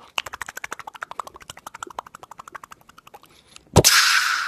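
Mock beatbox made with the mouth: a fast run of sharp mouth clicks, about a dozen a second, fading over about three seconds, like clip-clopping hooves. Near the end a sudden loud noisy burst lasting about a second.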